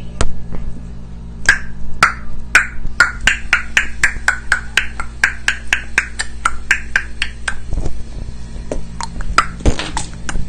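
A person making a quick series of mouth clicks and pops, about three a second, as a vocal imitation of an everyday sound. A few more pops follow near the end, over a steady low hum.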